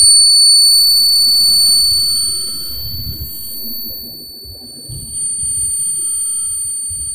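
A 600 oz-in stepper motor, driven by a Gecko G540 at a 179 kHz step rate, spinning at full speed near 5,900 RPM, giving a steady high-pitched whine with a fainter, higher overtone above it. Low, uneven rumbles of handling sit underneath.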